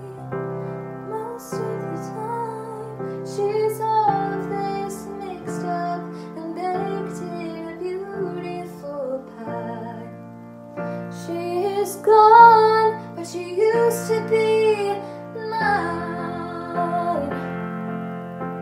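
A young woman's solo voice singing a slow musical-theatre ballad with piano accompaniment; the vocal line climbs and is loudest about twelve to fourteen seconds in.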